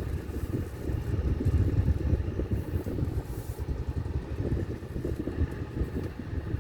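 Low, steady rumble of a car's engine and road noise heard from inside the cabin.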